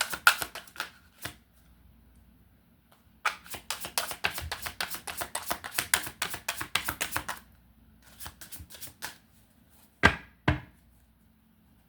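A deck of tarot cards being shuffled by hand: long runs of fast crisp card clicks, then two louder knocks near the end as the deck or a card is tapped down on the table.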